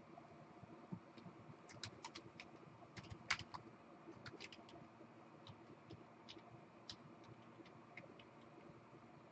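Faint, irregular clicks of typing on a computer keyboard: a quick cluster a couple of seconds in, then scattered keystrokes, over a faint steady hum.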